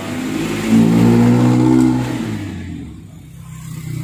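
A motor vehicle's engine passing by. It grows loud about a second in and fades away after about two seconds.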